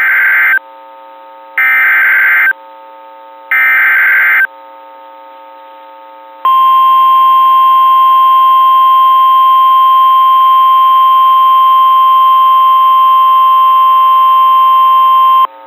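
NOAA Weather Radio emergency alert activation: three short bursts of warbling SAME header data, about a second each, then the steady 1050 Hz warning alarm tone for about nine seconds, which cuts off sharply. The tone signals that a warning, here a severe thunderstorm warning, is about to be broadcast.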